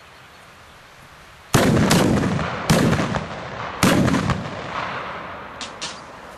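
Military rifle shots from a firing line: after a quiet second and a half, four loud shots come within about two seconds, each with a long rolling echo. Two faint sharp cracks follow near the end.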